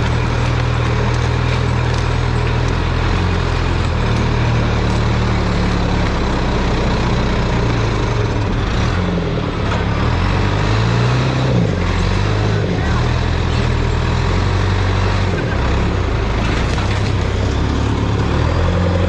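Heavy diesel engine of a tracked logging machine running steadily, its pitch dipping and rising for a few seconds around ten seconds in.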